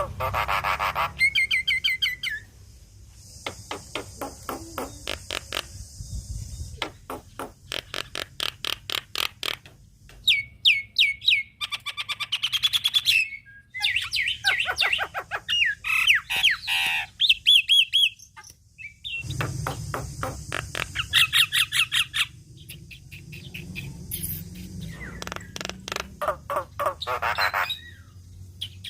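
Javan myna (jalak kebo) in full, vigorous song: long runs of rapid repeated notes alternating with whistled glides and chattering phrases, broken by short pauses.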